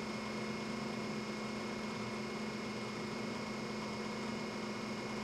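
Steady hum with a few constant tones over a faint even hiss: the aquaponics sculpture's water pump running, with water trickling through the clay-ball planters.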